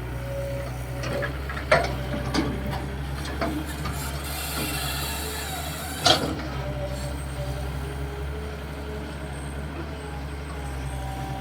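Hitachi EX220-3 long-boom excavator's diesel engine running steadily with a faint hydraulic whine, broken by a few sharp metallic knocks, the loudest about six seconds in.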